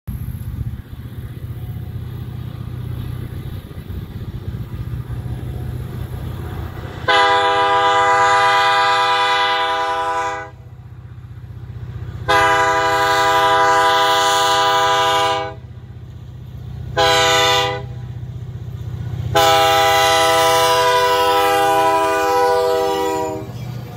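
RCP&E diesel freight locomotives approach with a steady low engine rumble. About seven seconds in, the lead locomotive's air horn sounds two long blasts, a short one and a final long one, each a chord of several tones. Long-long-short-long is the standard warning signal for a grade crossing.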